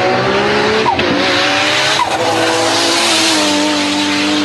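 Nissan Skyline R32 GT-R's twin-turbo straight-six under full-throttle acceleration: the pitch climbs and drops sharply at two upshifts about a second apart, then the engine pulls on at a nearly steady high pitch.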